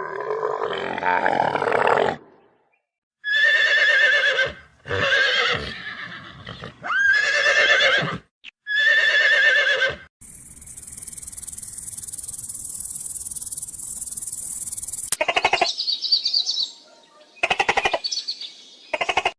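Horse whinnying, several separate shaking calls one after another. They are followed by a steady high hiss lasting about five seconds, then a few short rapid calls near the end.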